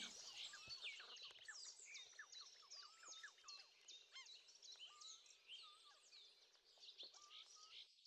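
Faint chorus of small songbirds chirping: many quick, high, sweeping chirps overlapping, with a few lower warbled notes among them.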